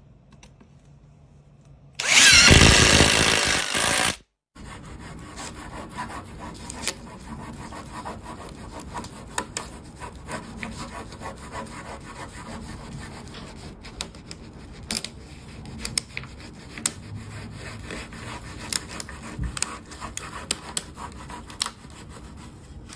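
Two cordless drills driving long screws into a plywood board, a loud whirr of about two seconds that stops abruptly. It is followed by soft, steady scraping with scattered small clicks as a thin flexible sheet is worked along the edge of an old guitar's wooden body.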